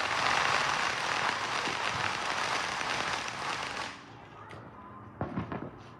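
A lit consumer firework giving off a steady, dense crackling hiss that cuts off suddenly about four seconds in.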